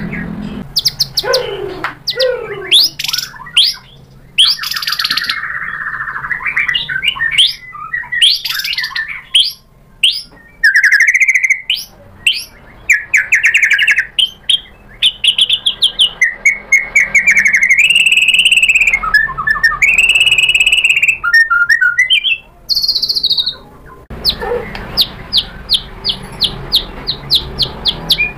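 White-rumped shama singing a loud, varied song: rapid trills, clear whistled notes that glide up and down, and chattering phrases, ending in a fast, even run of ticking notes.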